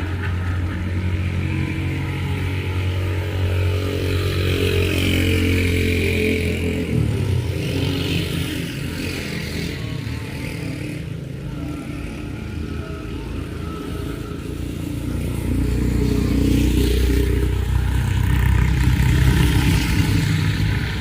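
Motor vehicle engines running close by, a steady low engine note whose pitch and loudness shift about seven seconds in and again around fifteen seconds in, as vehicles come and go.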